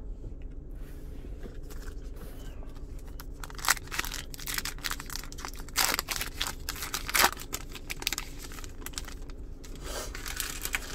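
A foil trading-card pack being torn open and crinkled, in irregular crackles and sharp snaps that are thickest through the middle.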